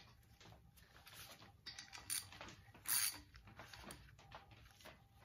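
Quarter-inch pipe tap being worked by hand in an oil galley hole of a cast-iron small block Chevy 350 block: irregular metal scrapes and light clicks of the tap and its holder, the loudest about three seconds in.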